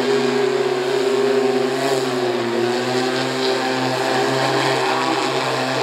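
Pivotal electric VTOL aircraft's propellers whirring in a steady, many-toned hum as it comes down for a vertical landing, the pitch wavering slightly about two to three seconds in.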